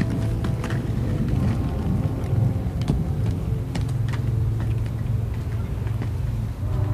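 Inline skate wheels rolling over concrete paving slabs: a steady low rumble with occasional short clicks.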